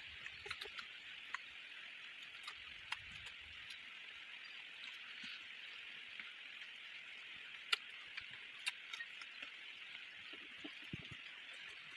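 Quiet eating by hand from a banana leaf: light clicks and soft handling sounds as fingers pick up food, with chewing, over a steady faint hiss.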